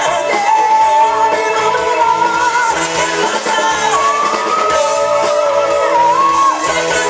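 Live rock band playing: a lead singer holds long sung notes, stepping up in pitch about four seconds in, over electric guitars, bass and a steady drum beat.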